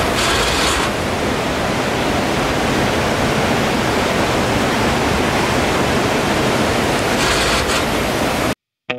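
Steady rush of white-water river rapids, with a brighter hiss swelling briefly at the start and again near the end; it cuts off suddenly just before the end.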